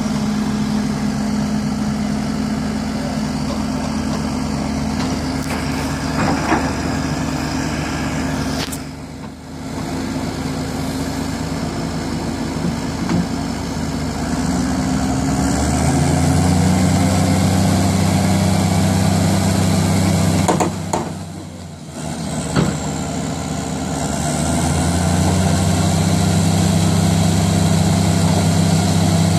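Diesel engines of a tracked excavator and a Caterpillar backhoe loader running, the machines working under load to free the backhoe from deep mud. The engine note steps up about halfway through, eases briefly a few seconds later, then rises again near the end.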